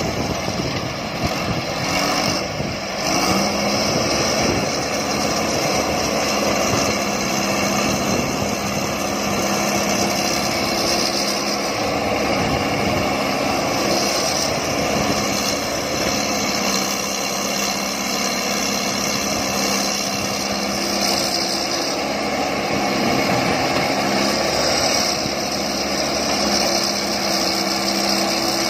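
Diesel engine of a Hitachi wheeled excavator running steadily while it digs, its note shifting a few times with the load, with other excavators working nearby.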